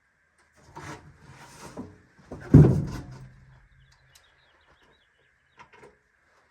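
Parts being handled: rustling and scraping, then a loud hollow knock about two and a half seconds in that rings low and fades, and a couple of small clicks near the end. A faint steady high-pitched tone sounds throughout.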